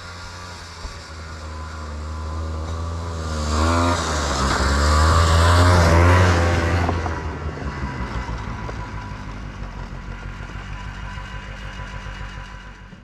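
Snowmobile engine passing by: it grows louder to a peak about midway, its pitch wavering, then fades as it moves away.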